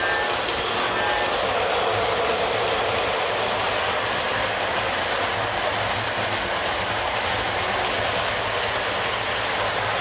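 A three-rail model freight train rolling past close by: a steady rumble of metal wheels on the track and the cars running over it, with no breaks.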